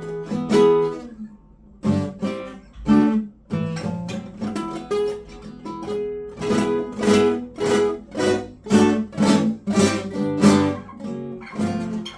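Acoustic guitar played live: quick runs of plucked notes and strummed chords, with a short pause about a second and a half in and busier playing in the second half.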